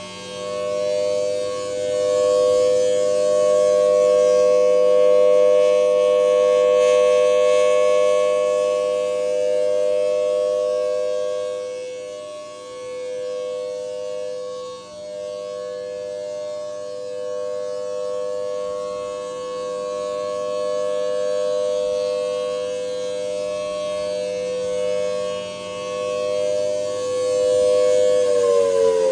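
Civil defense tsunami warning siren sounding a steady two-note tone, growing louder and softer by turns. Near the end its pitch starts to drop.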